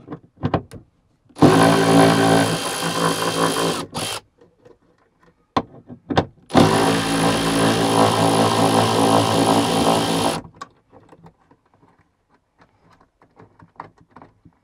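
Cordless electric ratchet running in two long runs, about three and four seconds each, as it undoes the bolts of a rear side window latch, with short clicks of the tool and fittings around the runs.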